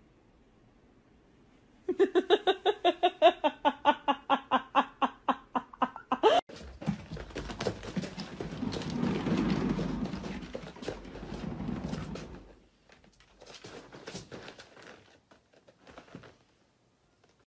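A quick run of short pitched sounds, about five a second, for about four seconds and loudest. Then a low rumble of a cat exercise wheel turning as a cat runs in it, which fades out after several seconds.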